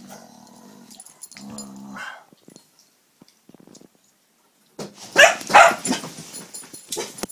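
A Dalmatian and a Cavalier King Charles spaniel play-fighting: a short low growl about a second and a half in, then two loud barks about five seconds in, followed by smaller yips and scuffling.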